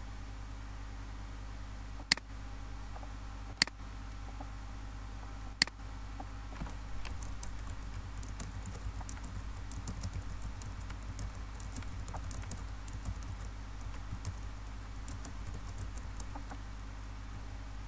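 Three sharp mouse clicks about two, three and a half and five and a half seconds in, then a computer keyboard being typed on in a quick, uneven run of keystrokes for most of the rest, over a steady low hum.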